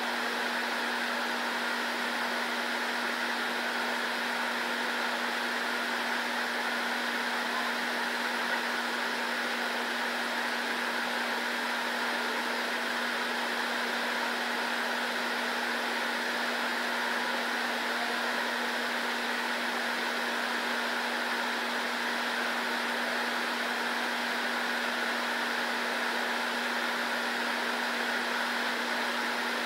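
Steady whir of a running fan with a low, even hum underneath, unchanging throughout.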